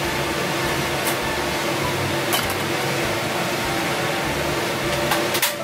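Steady whir of kitchen ventilation or an extractor fan, with a hum under it. A few light clicks come about a second in and again halfway, and a louder pair near the end.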